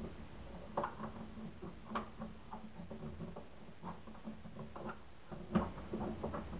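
Small metallic clicks and scrapes of a tension wrench and lifting tool working inside a lever-tumbler door lock, as the levers are raised while pressure is held on the bolt. The clicks are scattered and irregular, with sharper ones about a second in, about two seconds in, and near the end.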